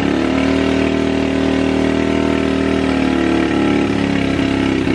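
Turbocharged Loncin pitbike's single-cylinder four-stroke engine idling steadily just after catching on a kick-start. It is running without its air filter after standing unstarted for a long time.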